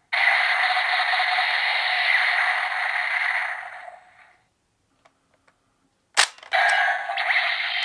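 Gabugabu Revolver toy gun playing an electronic sound effect through its small speaker for about four seconds, then a sharp click about six seconds in and another sound effect starting just after.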